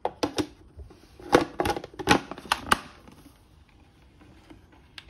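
Sharp plastic clicks and knocks, about nine in the first three seconds, as the lid of an electric food chopper is fitted and locked onto its bowl.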